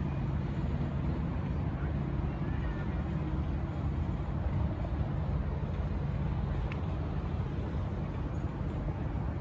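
Diesel engine of a miniature railway locomotive running steadily as it hauls a passenger train along the track; a steady low rumble.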